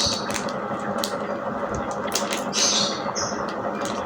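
Boba bead slime being squished and pulled by hand, making a run of sticky clicks, pops and crackles.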